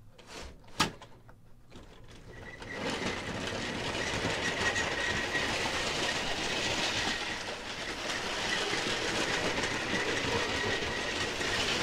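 Vintage LEGO 12-volt train (set 725 steam locomotive) getting under way about two and a half seconds in after two short clicks, then running on plastic 12V rails: a steady rattle of wheels over the track with a thin, steady motor whine, heard from a camera riding on the train.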